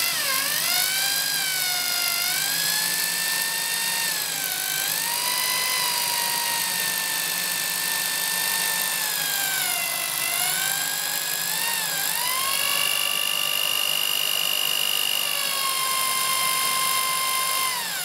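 A Bosch GSB 18-2 RE drill's motor whines at low speed as a cobalt HSS bit drills out a hardened steel screw. The pitch dips several times as the bit loads up, then holds steady. The low speed keeps the steel from overheating and work-hardening.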